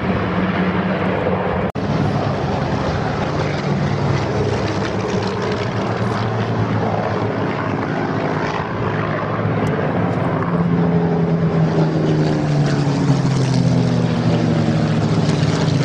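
Several Supermarine Spitfires' piston engines droning overhead in a steady, layered propeller growl. The pitch slides down through the second half as the aircraft pass, and there is a momentary drop-out just under two seconds in.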